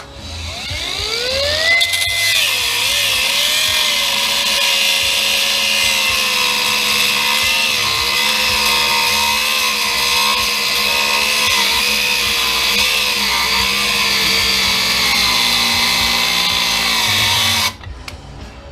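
Handheld electric cutting tool spinning up over about two seconds, then running steadily with its pitch dipping and wavering as it cuts through the metal of a wiper motor assembly. It stops abruptly near the end.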